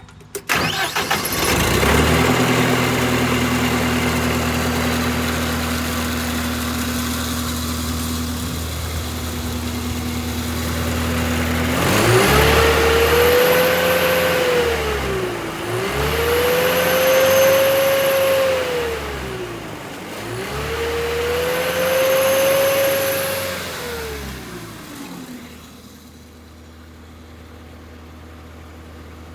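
Stump grinder's engine catching just after the start and then running steadily. Partway through it speeds up and drops back three times in a row, then settles to a lower, quieter idle near the end.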